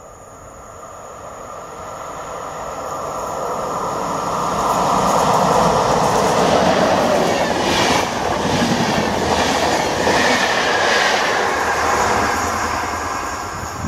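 EP09 electric locomotive hauling an express passenger train past: a rumble that builds as it approaches, then the rush of the passing carriages with a run of wheel clatter, dying away near the end.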